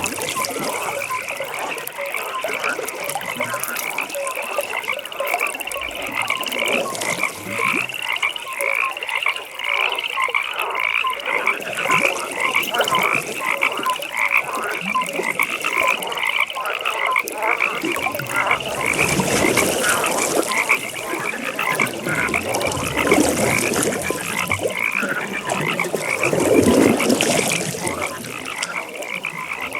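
A pond chorus of many frogs calling together: short croaks repeated rapidly and overlapping without a break, with a few louder swells in the second half.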